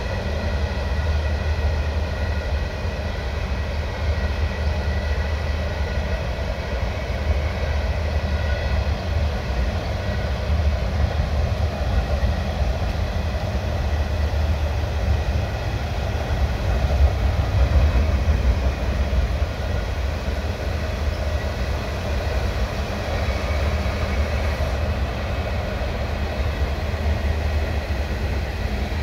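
Freight train of covered hopper cars running steadily across a railway bridge: a continuous low rumble with faint steady high tones above it, mixed with the rush of river rapids.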